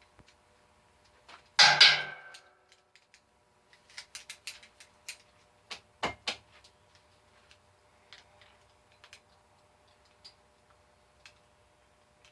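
Small metal parts and tools being handled while an air fitting is fitted to an air die grinder: a louder scraping rustle about two seconds in, then a run of sharp clicks and taps that thin out toward the end.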